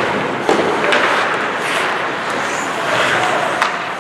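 Ice hockey play: skate blades scraping across the ice, with sharp clacks of stick and puck, one about half a second in and another near the end.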